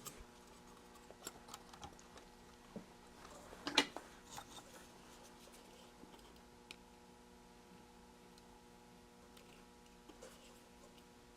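Faint, scattered small clicks and taps of parts and hand tools being handled while an electronics kit is put together, with one sharper click about four seconds in, over a low steady hum.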